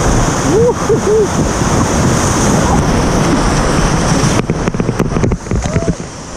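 Whitewater rapids rushing loudly around a raft, with wind buffeting the microphone and a few short cries about a second in. From about four and a half seconds in the rushing thins and sharp splashes and knocks break through, then the water noise drops away suddenly at the end.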